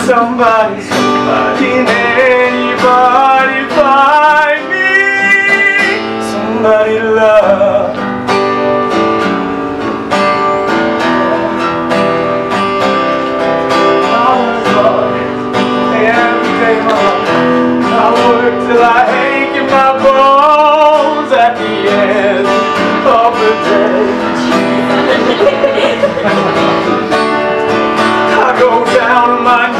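Music from a stage song number: instrumental accompaniment with a wavering melody line that sounds like singing.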